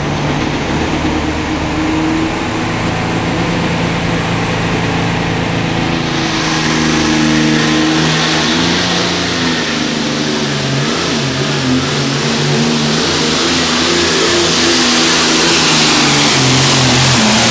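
John Deere 4450 pulling tractor's diesel engine running hooked to the sled, with a high whine climbing about six seconds in. Its pitch dips and comes back up midway, and near the end it gets louder and harsher as the tractor starts its pull.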